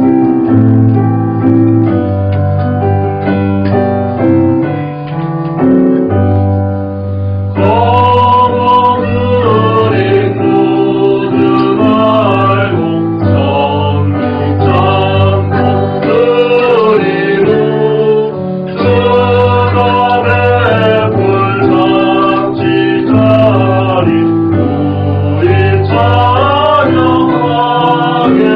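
Church choir singing a Korean harvest thanksgiving anthem with piano accompaniment. The piano plays alone at first, and the voices come in about seven seconds in.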